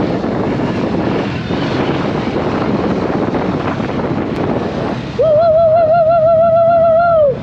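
Motorcycle engine running at road speed with wind rush on the microphone. About five seconds in, a horn sounds loudly as one steady tone with a slight waver for about two seconds, then stops.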